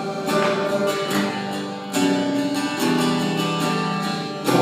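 Music: an acoustic guitar strumming chords in the instrumental gap between sung lines of a worship song.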